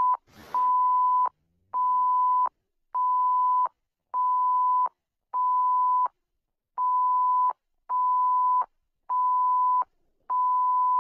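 Electronic alert beeps from a mock emergency alert: a steady mid-pitched tone pulsing on and off, a little under one beep a second, each beep lasting most of a second. A brief crackle sounds just after the start.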